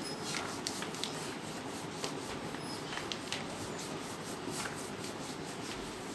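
Whiteboard eraser rubbing across a whiteboard, wiping off a marker drawing in a run of quick irregular strokes.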